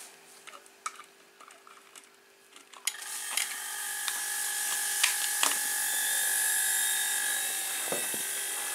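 A refrigerator compressor, rigged as a homemade air compressor, starts up about three seconds in after a few faint clicks. It then runs steadily with a hum and an airy hiss as it begins pumping air into its tank.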